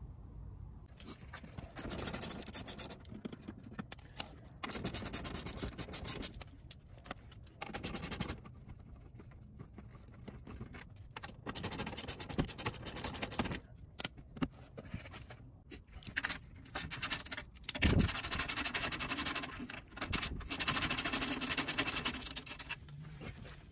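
Socket ratchet clicking in several bursts of a second or two as bolts under the truck are worked loose, with scraping and handling noise between.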